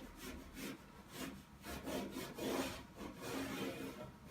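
A marker pen scribbling rough marks on the steel floor panel, heard as faint, repeated rubbing strokes about two a second.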